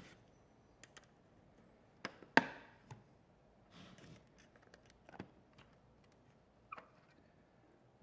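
Metal top cover of a Seagate hard drive being pried loose and lifted off by hand: scattered light clicks and taps, with one sharp metallic knock about two and a half seconds in and a short scrape near the end.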